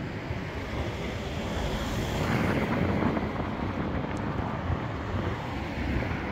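Wind buffeting the microphone over a steady rushing noise that grows a little louder about two seconds in.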